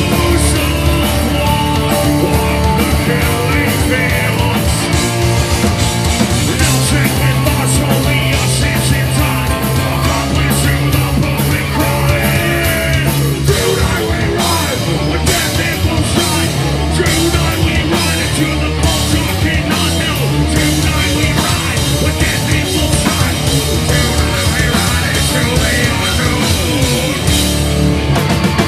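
A live heavy rock band playing at full volume: distorted electric guitar and a drum kit, continuous and loud.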